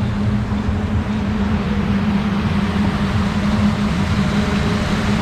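Steady machinery hum with a constant low tone over an even rushing noise, from a river rapids ride's motors and moving water.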